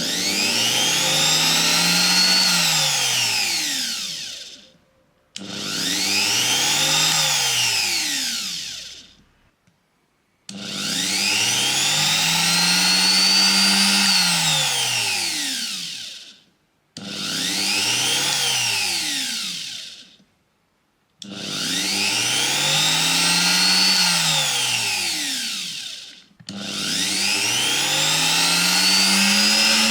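Compact trim router (wood trimmer) running free without cutting, started and stopped about six times. Each run's whine climbs in pitch as the motor spins up, then falls as it winds down.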